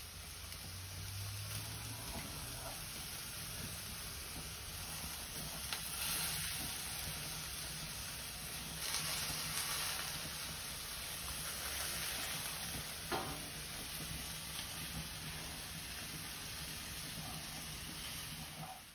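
Burger patties sizzling on a hot steel griddle plate: a steady frying hiss, with a few light clicks and taps.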